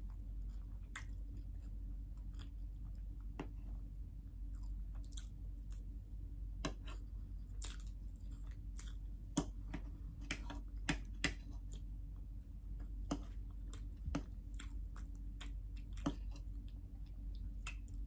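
Close-up mouth sounds of chewing soft chocolate Swiss roll cake: wet smacks and small clicks spread through, with a few sharper clicks of a fork against the tray near the middle, over a steady low hum.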